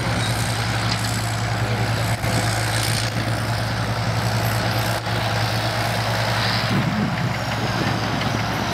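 Diesel engine of a vintage Caterpillar crawler tractor running steadily as it tows a loaded Caterpillar 435 scraper.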